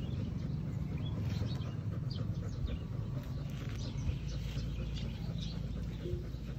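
Birds chirping, many short high calls scattered throughout, over a steady low hum.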